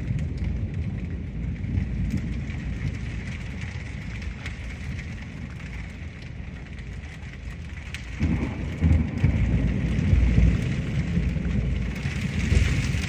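Heavy rain falling with a steady hiss, under a deep, uneven rumble that eases off midway and grows louder again about eight seconds in.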